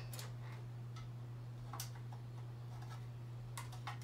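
A few light clicks and taps of a plastic box being handled as a small tachometer display is fitted into it, over a steady low hum.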